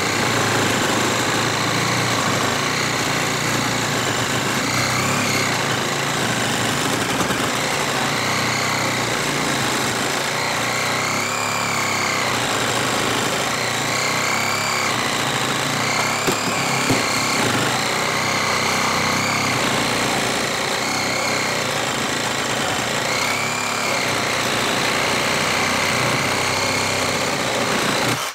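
Brushless Ryobi 18V cordless reciprocating saw running steadily as its blade saws through a 4x4 wooden post, the pitch swelling and dipping every couple of seconds as the blade works in the cut. It stops suddenly at the very end as the cut finishes.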